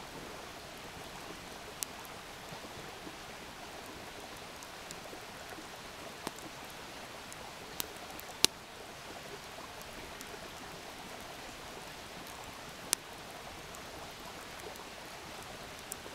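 Faint, steady hiss of outdoor night ambience, broken by about five sharp ticks or pops spread through it. The loudest comes about eight seconds in. No thunder is heard.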